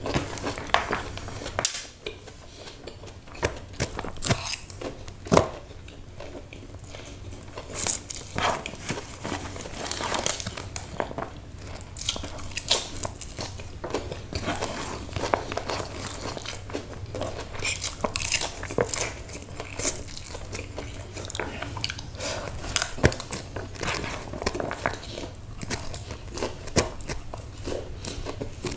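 Close-up eating of mie Aceh noodles: slurping strands in, chewing and lip smacks. Against this come many small clicks and crackles as the fork scrapes and the cardboard takeaway box crinkles in the hand.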